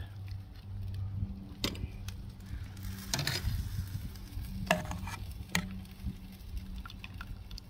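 Brown sugar and honey barbecue sauce sizzling in a metal pot as chicken drumsticks are dipped in it, with a few sharp clicks of metal tongs against the pot.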